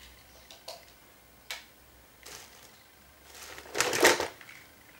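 Objects being handled: a few light clicks and knocks, then a louder rustling clatter about four seconds in.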